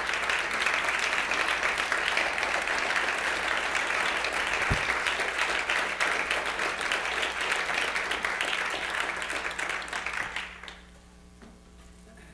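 Audience applauding steadily; the applause dies away quickly about ten and a half seconds in, leaving quiet room tone. A single low bump sounds partway through.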